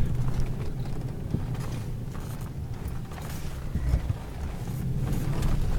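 Cabin sound of a four-wheel-drive seven-seat Toyota driving on desert sand: a steady low engine and road rumble with creaks and rattles from the vehicle body.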